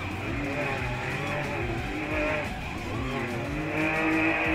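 Can-Am side-by-side's engine revving up and down through bends, its pitch rising and falling several times, then holding steady at higher revs near the end.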